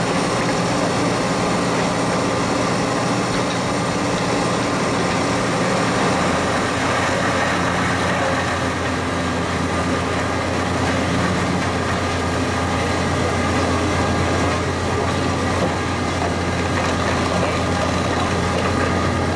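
Jenz HEM 561 Z wood chipper running steadily as a crane grapple feeds it wood; a low drone grows stronger about six seconds in.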